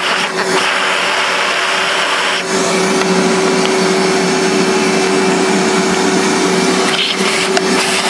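Vacuum cleaner running with its hose nozzle inside a coffee grinder's chute, sucking out old coffee grounds. It runs steadily with a constant hum, and its sound shifts lower about two and a half seconds in.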